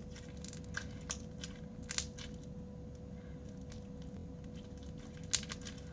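Beaded crunchy slime being folded and squeezed by hand: scattered crunches and clicks from the beads, the sharpest about five seconds in, over a faint steady hum.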